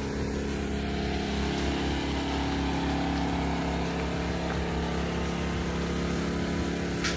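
An engine running steadily at an even speed, with a sharp click near the end.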